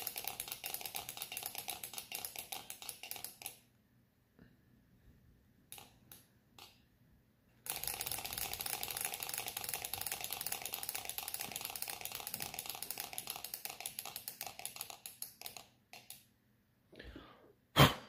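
Six-cylinder rotary Stirling engine running, the metal ball bearings inside its glass cylinders clicking in a rapid, even tick. The ticking stops about three and a half seconds in, with only scattered clicks for a few seconds, then resumes about eight seconds in and dies away near sixteen seconds. A single loud click comes just before the end, as the alcohol lighter's lid is snapped shut.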